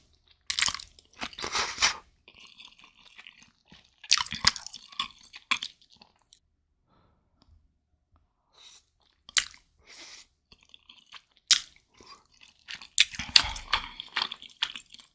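A person eating spicy Buldak instant ramen noodles close to the microphone. Several loud slurps of noodles with wet chewing between them.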